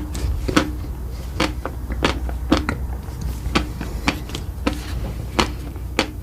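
Close-miked eating sounds: a person chewing, making a run of sharp clicks about three a second over a low steady hum.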